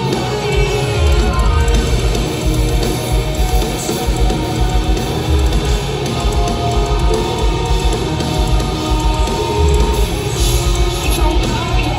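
Live rock band playing an instrumental passage: electric guitars, bass and a steady pounding kick drum, with no singing.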